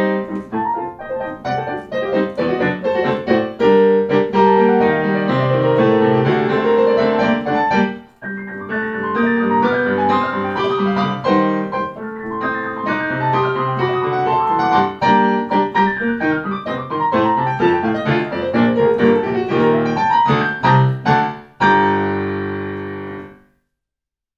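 Solo piano piece being played, with a short break about a third of the way through. It ends on a final chord held for about a second and a half, which then stops abruptly.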